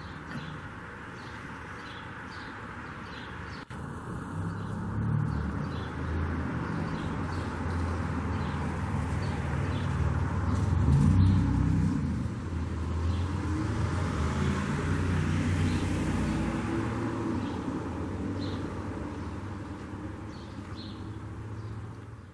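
Motor vehicle engine rumble that swells from about four seconds in, is loudest around eleven seconds, and then fades slowly.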